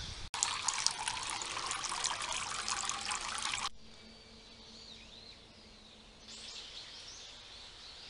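Water splashing and trickling steadily, cutting off suddenly about three and a half seconds in. A quieter stretch follows, with faint bird chirps near the end.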